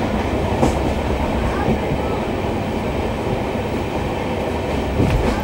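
Train running along the track, heard from an open carriage doorway: a steady rumble of wheels on rail, with a few sharp clicks.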